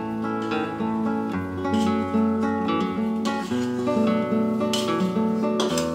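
Background music led by acoustic guitar, with plucked and strummed notes changing every second or so.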